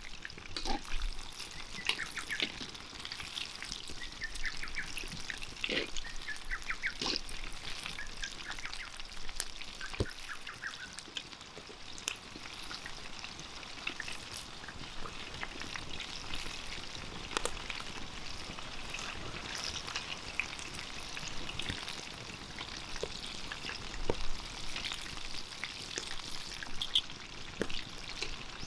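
Chicken pieces deep-frying in hot oil: a steady sizzle with scattered sharp pops and crackles.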